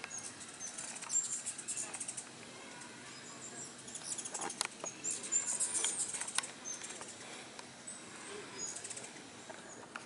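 Ruby-throated hummingbirds chipping and twittering: clusters of short, high, squeaky calls, busiest about a second in and again from about four to six and a half seconds, with a few sharp ticks among them.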